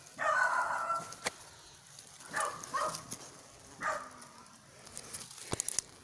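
A rooster crowing once, followed by a few shorter calls, with a few sharp clicks near the end.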